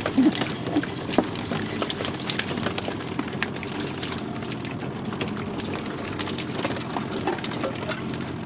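Boat engine idling steadily under irregular taps and knocks as fish and hooks hit and flap in a plastic fish crate while the rig is hauled in.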